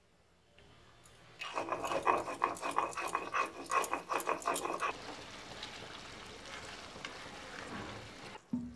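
Stone roller rubbed back and forth on a flat grinding stone (shil-nora), grinding red chillies in a run of rasping strokes, about three a second. About five seconds in it gives way to a softer, steady sizzle of mutton curry cooking in a steel kadai.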